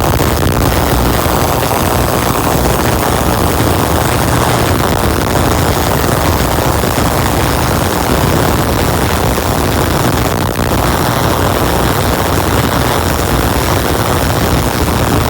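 Tesla coil running with its air-blown spark gap firing, a loud, steady buzzing noise that holds unbroken throughout.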